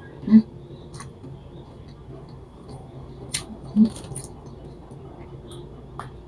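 Close-miked eating sounds: two short, low mouth sounds about a third of a second in and just before four seconds, a few light clicks in between, and another click near the end as a paper cup is raised to drink.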